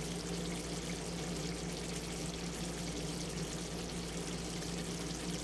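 Chicken adobo simmering in a pan, its sauce bubbling and sizzling steadily, over a steady low hum.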